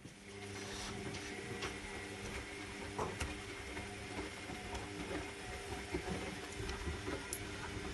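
Zanussi Lindo 100 washing machine's motor starts just after the beginning and turns the drum during the 40-degree cottons wash, a steady mechanical hum with a few faint clicks.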